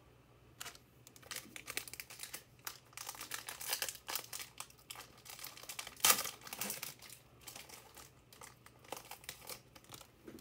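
Trading-card pack wrapper being torn open and crinkled, in irregular crackles with the loudest about six seconds in.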